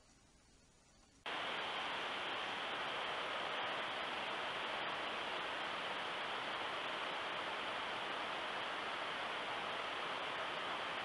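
Steady, even hiss from a trail camera's audio track, starting abruptly about a second in, with no distinct sound over it.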